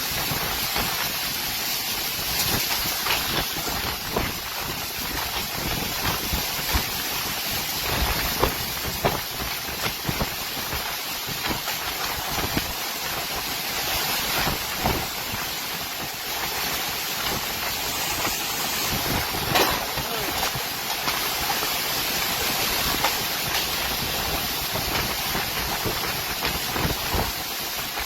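Storm wind blowing hard: a steady rushing noise with frequent gusts and many small sharp knocks.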